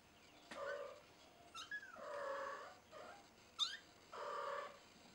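Kittens calling out in short, repeated cries while they play, three in all, each about half a second long; the second and third are preceded by a brief sharp squeak.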